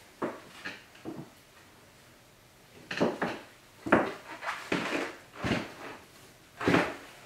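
Irregular knocks, clicks and light clatters of small hard objects being handled and set down on a table. There are a few spaced taps at first, then a busier run of knocks from about three seconds in.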